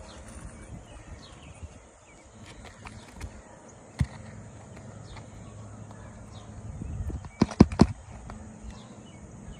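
Hammer driving roofing nails through a replacement asphalt shingle: one sharp strike about four seconds in, then a quick run of four strikes near the end. The nails go in easily, which the roofer takes as a sign of soft roof decking.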